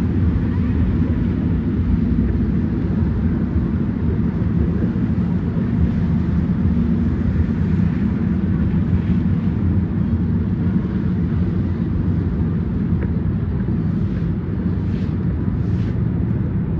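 Steady low rumble of a snowstorm street scene: wind buffeting the microphone over the drone of city traffic.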